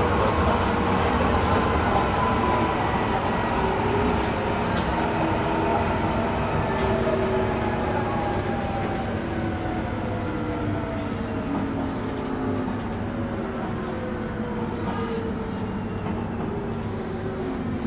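Running noise inside a DUEWAG B80D light-rail car: a steady rumble of wheels on the rails with the electric traction motors' whine falling slowly in pitch as the car slows.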